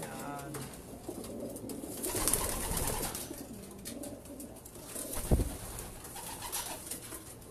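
Racing pigeons cooing, with a louder burst of noise about two seconds in and a sharp thump a little past five seconds.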